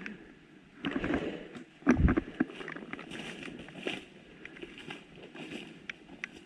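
Footsteps and rustling through woodland undergrowth, with scattered sharp clicks like twigs snapping and a heavy thump about two seconds in.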